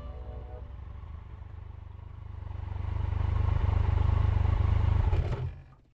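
Triumph Tiger 1200's three-cylinder engine running as the motorcycle rides along, growing louder about halfway through, then fading out just before the end. The tail of background music is heard at the start.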